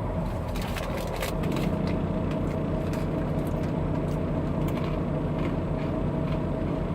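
Steady low drone of an idling vehicle engine, with a few faint scattered clicks over it.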